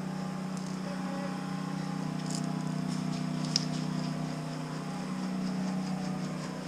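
Steady low mechanical hum, with a few faint clicks and one sharp click about three and a half seconds in.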